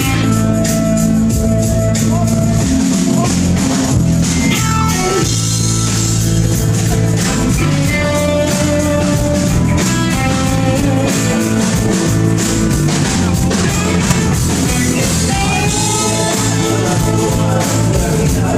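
Rock band playing live, guitars prominent, with a voice singing over them.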